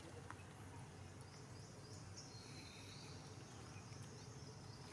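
Faint outdoor ambience: a steady low rumble, with a few faint high chirps from about a second in and a thin high tone through the middle.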